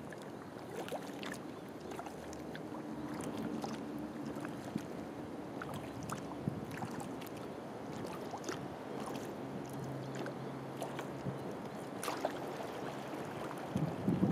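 Kayak paddling: small irregular splashes and drips of water from the paddle blades, with light lapping of water against the hull.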